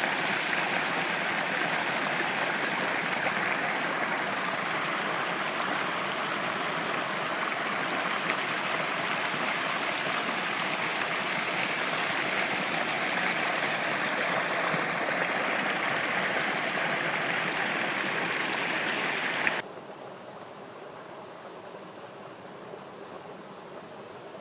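Rushing river water flowing steadily, a dense even wash of sound that cuts off suddenly near the end, leaving only a faint hiss.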